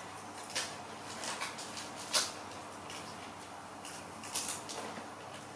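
Macaque monkeys biting and chewing pieces of green fruit: irregular crunches and mouth smacks, the loudest about two seconds in.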